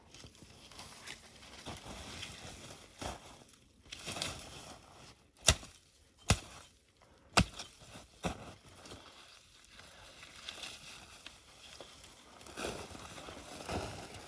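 Sticks and branches being handled and rustled, with three sharp cracks about halfway through, under a second apart.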